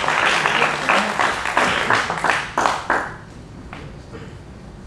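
Audience applauding in a hall, dying away about three seconds in, followed by a single faint click.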